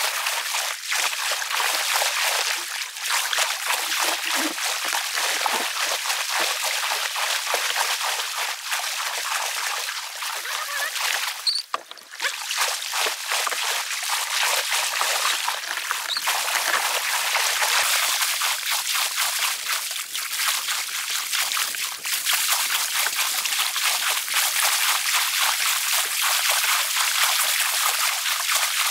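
Rushing water of shallow river rapids, a steady hiss, with a brief dip near the middle.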